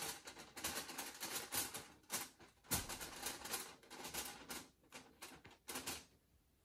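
Paper target card and crumpled aluminium foil rustling and crinkling under gloved fingers: a run of irregular crackles and scrapes that stops near the end.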